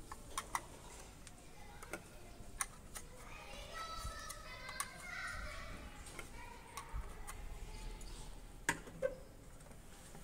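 Hard plastic parts clicking and knocking as spray-nozzle arms are pushed into a plastic hub and the assembly is set onto the humidifier's outlet: scattered sharp clicks, with two louder knocks near the end.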